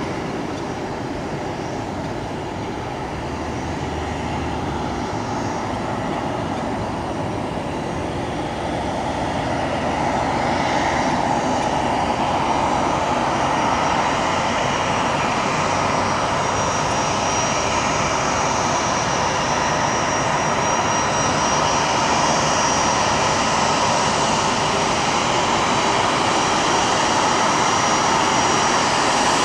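Airbus A330-200 jet airliner making a steady jet whine and rumble that gets louder about ten seconds in, with a thin high whistle over it in the second half.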